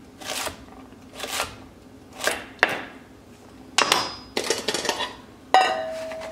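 Chef's knife chopping carrots on a wooden cutting board, four cuts about a second apart, then the knife clattering down and the diced pieces being pushed together. Near the end a stainless steel bowl is set down with a hit that rings on for over a second.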